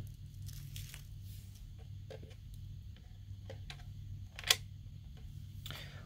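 Quiet handling noises from small objects being moved about: scattered faint clicks and taps, with one sharper click about four and a half seconds in, over a low steady hum.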